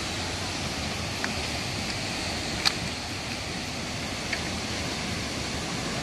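Steady rushing roar of a waterfall plunging into its pool. A few short clicks sit on top, the sharpest about halfway through.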